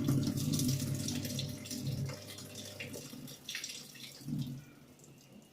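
IFB washing machine taking in water just after being started: a rushing, splashing inflow that is strongest at first, fades after about three seconds, swells briefly once more and then dies away.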